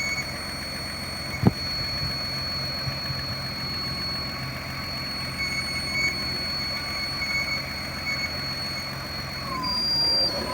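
BMW petrol engine idling with a steady high-pitched whistle over the engine hum, which the owner puts down to the custom idle air control valve or something around the camshafts. There is a single sharp click about a second and a half in. Near the end a whistle slides down in pitch and the engine gets louder.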